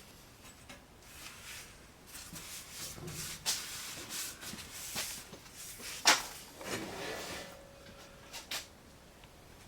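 Workshop handling noises: scattered knocks and clatter between stretches of rubbing or scraping, with the sharpest knock about six seconds in.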